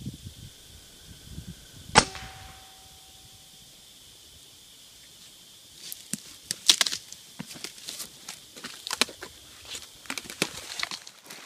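A single sharp crack about two seconds in: a shot from a .25 AirForce Condor pre-charged air rifle firing a Predator Polymag pellet. From about six seconds on come irregular crunches and twig snaps of footsteps through dry brush and leaf litter as the shooter gets up and walks.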